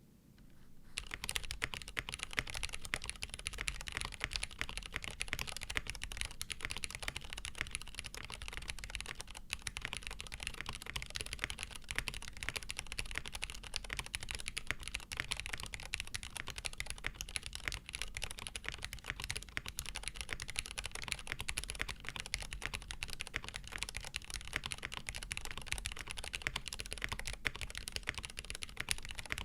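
Fast, continuous typing on a Frog TKL mechanical keyboard with lubed Cherry New Nixie switches, a POM plate, GMK keycaps and a tape mod: a dense stream of keystrokes that begins about a second in.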